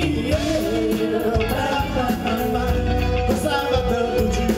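A live pop band playing dance music: a singer's held melody over bass, guitar, keyboard and drums.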